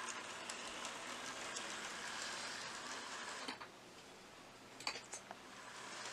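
Hornby OO gauge Class 50 model diesel locomotive running on the track: a faint, steady whirr of its motor and wheels on the rails, a smooth, quiet runner. The whirr drops away about three and a half seconds in, a couple of light clicks come near five seconds, and it grows louder again near the end.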